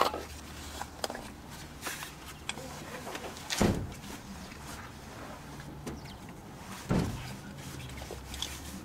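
Handling of a hand saw blade near the rusty suspension: scattered light clicks and two dull knocks about three and a half seconds apart, over a steady low hum.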